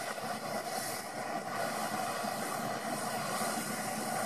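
Small plumber's propane torch burning with a steady rushing hiss while its flame heats a steel ball bearing.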